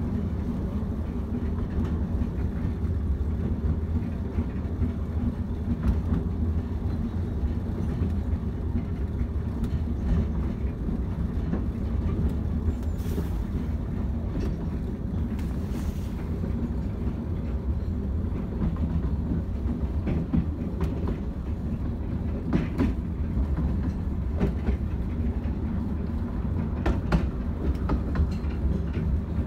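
Ravenglass & Eskdale 15-inch-gauge railway carriage running along the line, heard from on board: a steady low rumble of wheels on track with scattered clicks from rail joints. Two brief hisses come about halfway through.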